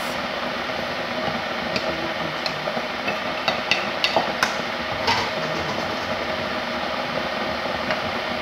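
A spoon knocking and scraping against a metal cooking pot as cooked macaroni is tipped out of it, with a cluster of sharp clinks about halfway through, over a steady background hum.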